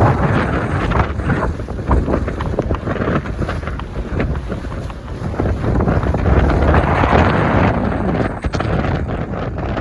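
Strong wind buffeting the microphone: loud, uneven rumbling gusts that rise and fall throughout.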